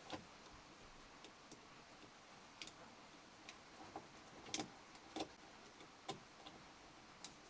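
Faint, irregular small clicks and ticks of wires and their terminal ends being handled and fitted onto a wall thermostat's terminals, about a dozen over several seconds, the loudest a little past halfway.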